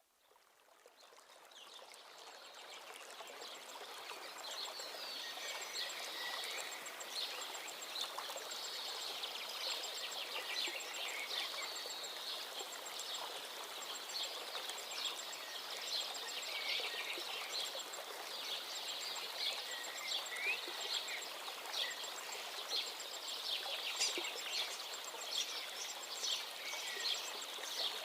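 Birds chirping over steadily running stream water, fading in over the first few seconds.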